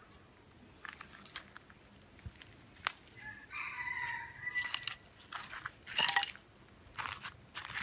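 Wire mesh clinking and rattling in short bursts as it is twisted with pliers and shifted by hand. About three and a half seconds in, a chicken calls once, for about a second.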